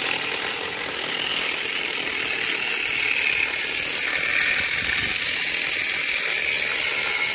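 Cordless angle grinder running steadily with its disc cutting through a clay drain pipe, a continuous high grinding noise.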